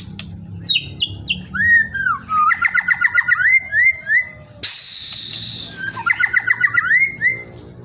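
White-rumped shama singing: quick runs of repeated whistled notes that slide upward, with a short loud harsh hissing burst about five seconds in.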